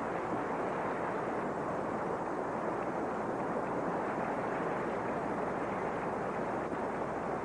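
Arena audience applauding and cheering steadily for a figure skater at the end of her program, heard as a dense, even wash of clapping on an old broadcast recording.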